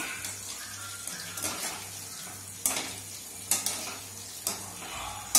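Battered chicken pieces deep-frying in hot oil in a metal kadai, a steady sizzle, while a wire mesh skimmer stirs them and clinks sharply against the pan about five times in the second half.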